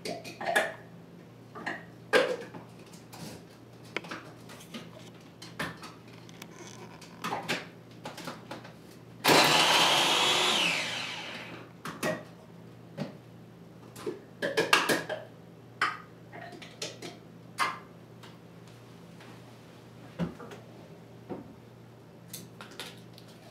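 Small food processor mincing peeled ginger root: its motor runs loud for about two seconds, then winds down and stops. Scattered clicks and knocks come before and after it.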